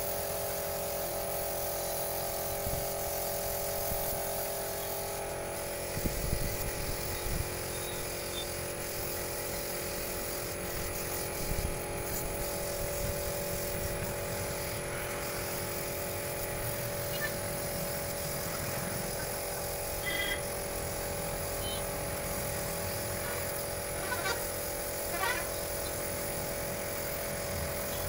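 Air spray-paint gun hissing steadily as it sprays, over the steady hum of the air compressor that feeds it.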